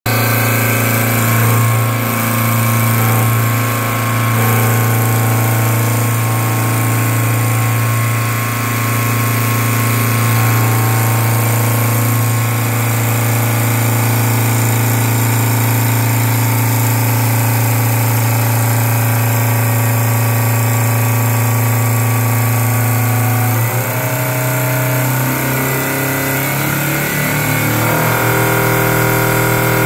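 CNC wood lathe running, its motors humming steadily as a cutter and a spinning flap sanding wheel work a turning wooden spindle. The machine sound shifts in tone about 24 seconds in.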